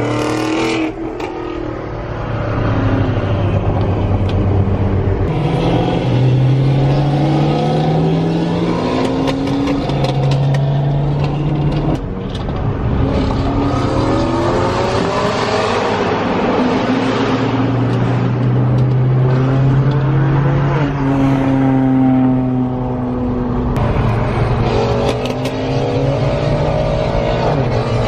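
Performance car engine accelerating hard, its pitch climbing and falling back at each gear shift several times over, then holding steadier, with other car engines running.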